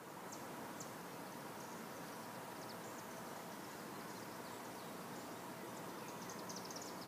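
Faint outdoor ambience: a steady background hiss with scattered short, high chirps throughout.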